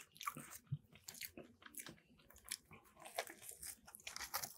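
A person biting and chewing a mouthful of Subway sub with lettuce close to the microphone: faint, irregular wet clicks and soft crunches.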